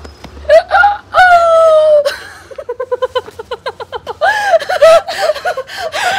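A woman's voice mimicking a rooster's crow: a short high call, then a long drawn-out call that falls in pitch. It is followed by quick, rapid laughter and more high wavering vocal sounds.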